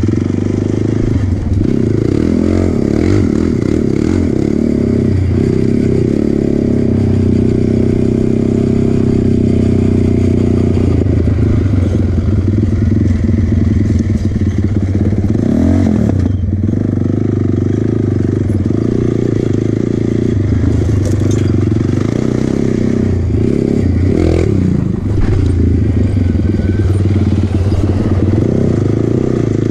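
ATV engine running as the quad rides a rough dirt trail, steady under throttle with brief let-offs about halfway through and again later, over the rattle of the machine and the crunch of gravel under the tyres.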